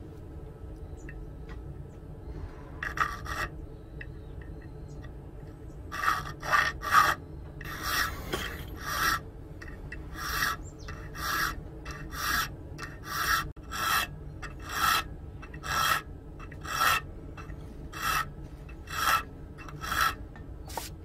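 Round file rasping across the 5160 spring-steel knife blank clamped in a vise, cutting a notch at the base of the blade. After a single stroke early on, the strokes settle into a steady rhythm of about one a second.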